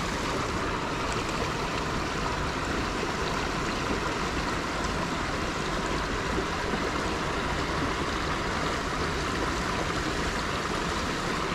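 Small trout stream flowing over a shallow riffle: a steady, even rush of water.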